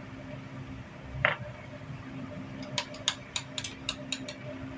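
Metal pistol parts being handled during a barrel fitting: a single ringing metallic clink about a second in, then a quick run of about eight sharp clicks and taps, over a faint steady hum.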